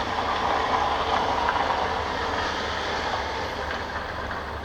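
Steady mechanical noise of a passing vehicle, swelling about a second in and then slowly fading.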